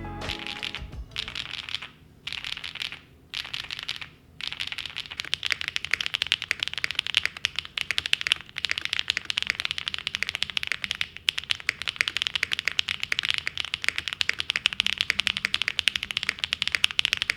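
Typing on a custom OwLab Jelly Evolv 75 mechanical keyboard fitted with Keybay Cheese switches and GMK Redline keycaps: a few short bursts of keystrokes with brief pauses, then fast continuous typing from about four seconds in.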